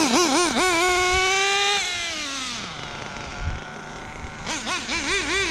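Nitro RC car's Dynamite .28 big block two-stroke glow engine revving in quick throttle blips, then holding a high, slowly rising note; about two seconds in the pitch falls away and it goes quieter, then comes more quick blipping near the end before it holds high revs again. The engine is running well, with a good-sounding exhaust.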